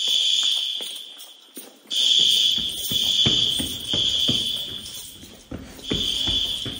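Fire alarm horns sound a high, piercing tone that cuts out briefly twice and starts again, with footsteps walking beneath it.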